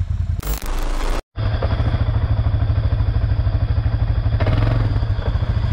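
Quad bike (ATV) engine running steadily with an even pulse. The sound cuts out for a moment about a second in, then the engine runs on.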